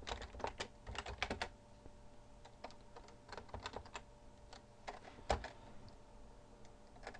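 Computer keyboard keystrokes: a quick run of typing in the first second and a half, then scattered single key presses, one louder about five seconds in.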